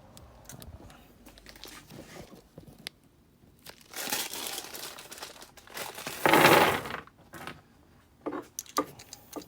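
Plastic packaging crinkling and rustling as new cylinder nuts are unwrapped, with the loudest rustle about six seconds in and scattered small clicks of metal hardware being handled.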